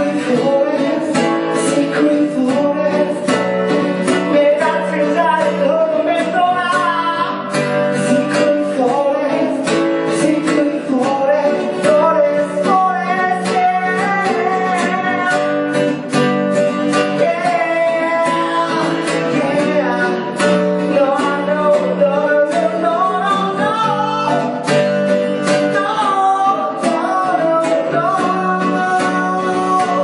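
Acoustic guitar strummed in a steady rhythm while a man sings, a live solo song performance.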